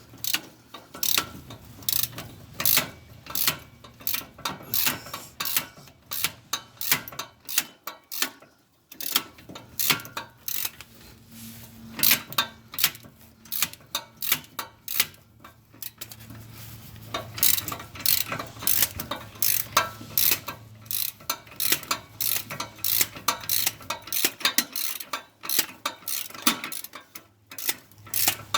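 Hand ratchet wrench clicking in quick repeated runs as it works 15 mm exhaust manifold bolts loose, with a short pause about eight seconds in.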